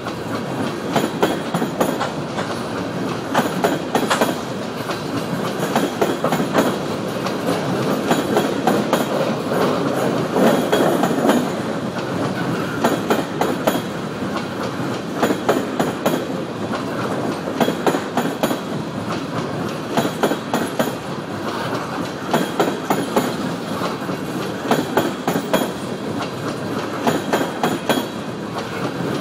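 Empty coal cars of a long freight train rolling past, a steady rumble broken every few seconds by quick groups of clicks as the steel wheels cross rail joints.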